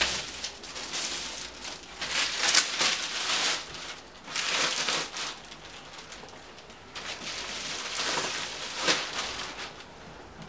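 Plastic wrapping crinkling as it is pulled and crumpled off a cardboard box, in several bursts of rustling with a sharp crackle near the end.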